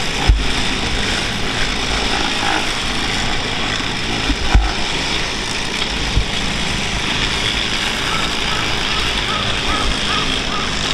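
Track maintenance machinery running with a steady, even noise, broken by two low thumps, one just after the start and one about four and a half seconds in.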